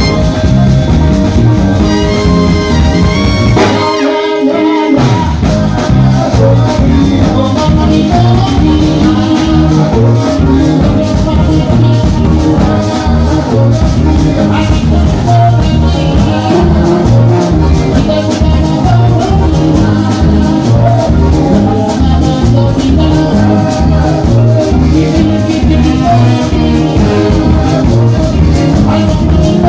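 Kaseko band playing live: drum kit, sousaphone, trumpets and electric guitar in a fast dance groove. About four seconds in, the drums and bass drop out for about a second before the groove comes back in.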